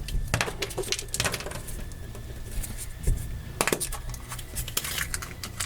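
Hands opening a Kinder Surprise chocolate egg to reach the toy inside: a run of small crackles and clicks.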